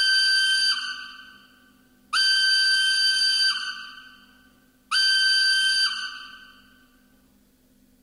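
Steam-whistle signal from the sound decoder of a Jouef H0-scale SNCF 140 C steam locomotive model: three whistle blasts about two and a half seconds apart, the middle one the longest, each dropping slightly in pitch as it ends and trailing off.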